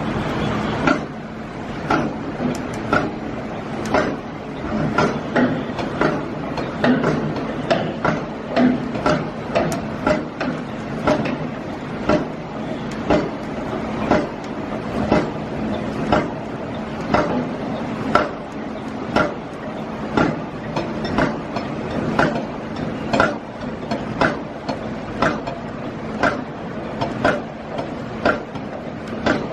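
Construction-site work in heavy rain: sharp knocks repeating about one to two times a second, like hammering, over a steady rushing noise.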